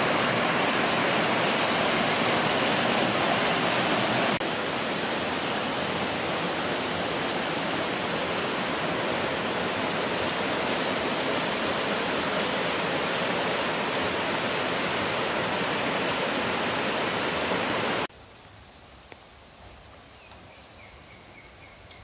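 Water of a rocky forest stream rushing over boulders in a steady hiss, a little quieter after a cut about four seconds in. Near the end the water sound stops abruptly, leaving a much quieter forest background with a faint, high, steady insect drone.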